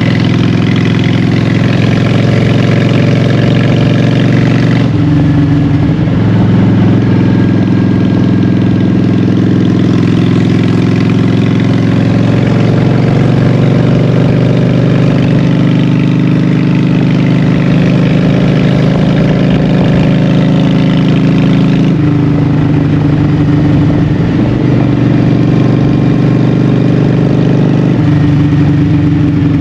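Honda Shadow 750 V-twin engine running through Vance & Hines Short Shots exhaust pipes on the move, the exhaust note stepping to a new pitch about five seconds in, again a little over twenty seconds in and near the end.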